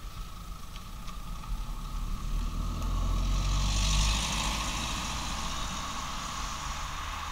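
A passing motor vehicle: a low engine rumble and hiss swell to a peak about four seconds in, then fade, over a steady high tone.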